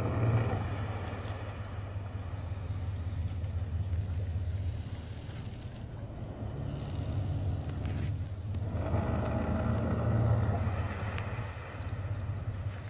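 A motor yacht's engines drone steadily under rushing water and wind noise, which swell near the start and again about nine seconds in.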